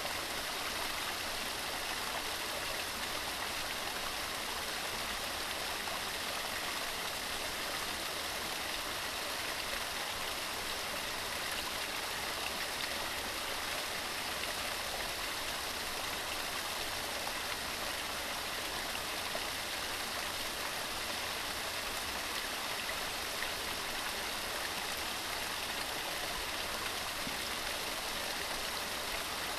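Forest waterfall: water falling and rushing in a steady, unbroken hiss with no pauses or changes.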